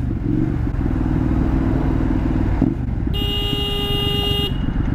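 Motorcycle engine running under way with wind rumble. About three seconds in, a vehicle horn sounds as one steady blast lasting about a second and a half.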